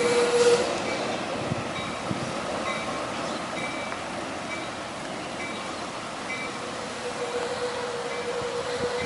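A train passing with a steady rumble that eases midway and builds again. A steady tone is heard at the start and again near the end, and a faint high ding repeats about once a second throughout.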